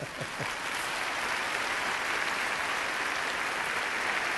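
Large audience applauding steadily, breaking out as the lecture ends.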